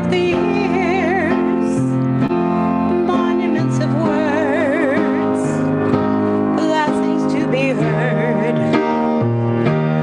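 A woman singing to her own piano accompaniment, holding notes with a wide vibrato over sustained piano chords.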